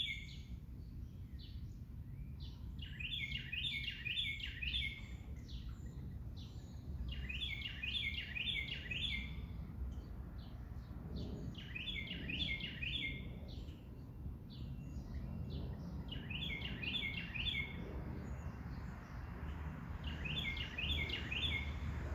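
A songbird singing the same short, rapid phrase of repeated notes, about one and a half seconds long, roughly every four and a half seconds, over a steady low background rumble.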